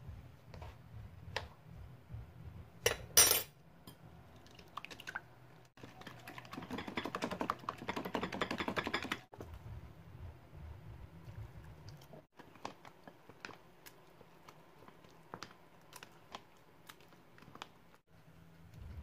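Eggs being beaten in a glass bowl: a fast, dense rattle of utensil clicks against the glass lasting about three seconds midway, with one loud short clatter a few seconds earlier. Around it, scattered taps and clinks of utensils on glass bowls as the egg is poured over the cauliflower mixture and stirred.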